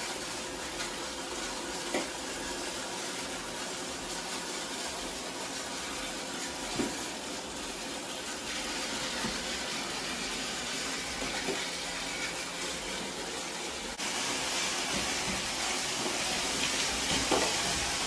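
Two robot vacuums, an iRobot Roomba i7+ and a Shark, running over a dusty carpeted floor: a steady whooshing hiss of suction fans and brushes with a few faint clicks. It steps up louder about fourteen seconds in.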